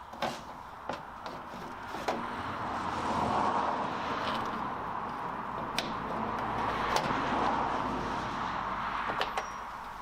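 A vehicle passing on a nearby road: a rushing noise that swells twice and fades near the end, with a few sharp clicks and taps over it.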